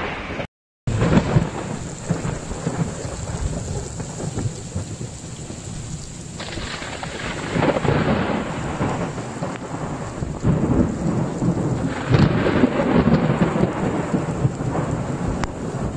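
Thunderstorm: steady rain with thunder rumbling, swelling louder about halfway through and again later on. The sound cuts out completely for a moment just after the start.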